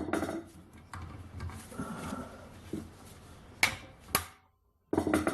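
Quiet handling and shuffling, then two sharp knocks about half a second apart: a hammer striking a manual impact driver to break a seized screw free.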